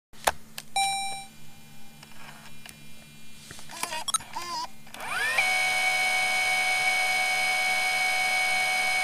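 Camera mechanism sounds: a sharp click, a short electronic beep, a few small mechanical clicks, then a small camera motor that whirs up in pitch about five seconds in and runs as a steady high whine.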